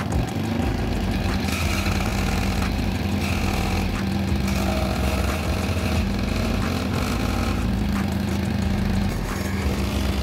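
A small motor running steadily with a constant low hum.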